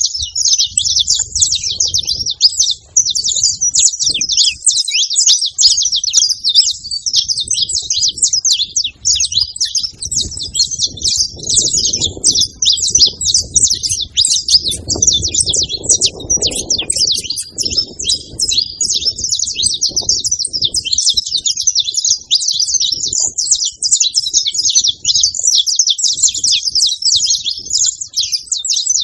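Many saffron finches chirping and singing at once, short overlapping high chirps in a continuous dense chorus.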